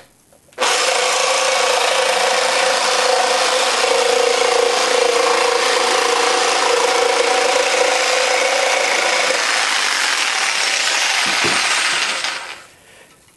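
Jigsaw with a coarse wood-cutting blade cross-cutting 2-inch-thick plywood: the saw starts about half a second in, runs steadily through the cut, and stops about a second before the end as the offcut comes free.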